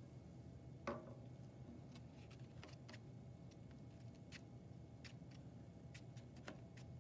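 Near silence: faint scattered clicks and taps of small handling, with one louder tap about a second in, over a low steady room hum.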